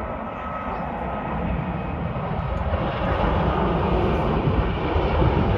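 Jet airliner landing: a steady rush of engine noise with a low rumble, growing louder about halfway through as the jet touches down and rolls along the runway.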